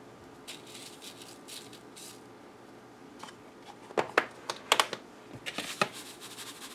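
Old Bay seasoning shaken from its tin onto a paper plate: a few soft spurts of hissing spice grains in the first two seconds. From about four seconds in, a run of sharp taps and clicks as the tin and the paper plate are handled on the countertop.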